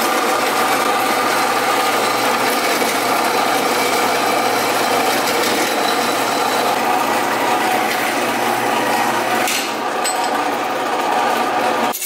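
Industrial metal bandsaw running steadily as it cuts through an aluminium intercooler pipe, a continuous mechanical whir over a low motor hum. The blade is worn down to few teeth and barely cuts.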